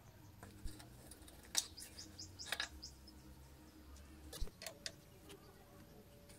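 Scattered light clicks and knocks of rusty metal motorcycle parts and hand tools being handled, as a footpeg is taken off and a tool is put to the footrest bracket. Faint bird chirps.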